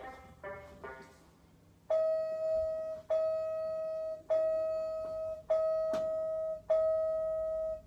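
Electronic toy dart target playing a short electronic tune, then five long, identical beeps, about one every 1.2 seconds. A faint click comes about six seconds in.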